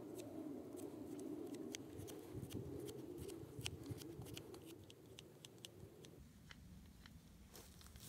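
Small folding knife whittling a green stick: a quick run of short, crisp cuts and scrapes as shavings come off. A low background rumble underneath drops away about six seconds in.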